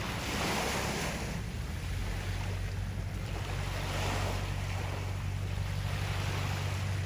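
Small waves washing in over a sandy beach, swelling and fading about every two seconds, over a steady low rumble.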